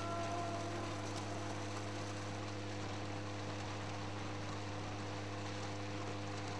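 A steady low electrical-sounding hum with fainter held overtones over a constant hiss. A few higher held tones fade out right at the start.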